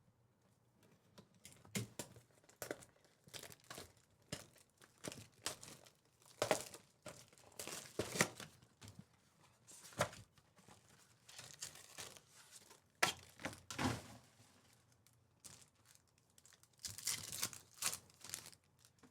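Trading card pack wrappers being torn open and crinkled, with cards being handled, in quiet irregular rustles that come in clusters.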